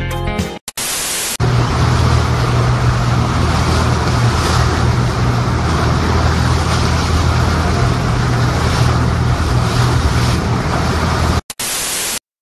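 Steady low drone of a boat's engine with a rush of wind and splashing water, as a large pod of dolphins surfaces around it. A short burst of TV-static hiss comes just before it, and another near the end.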